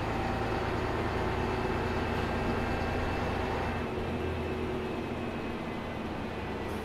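Ikarus 280 articulated bus's diesel engine and ZF Ecomat automatic gearbox running under way, heard from inside the bus. The engine note shifts about four seconds in.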